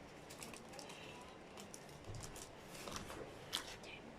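Faint, scattered light clicks and rustles of small objects being handled, with one sharper click about three and a half seconds in.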